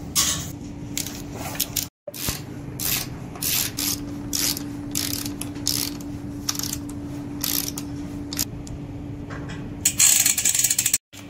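Ratcheting hand tools clicking in irregular short runs as bicycle bolts are tightened, with the loudest and densest clicking near the end, from a ratcheting torque wrench. A faint steady hum runs behind, and the sound cuts out briefly twice.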